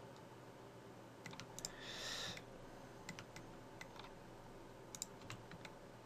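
Faint, scattered clicks of a computer mouse and keyboard, several in quick succession about a second in, more around three to four seconds and a double click near five seconds. There is one short hiss about two seconds in.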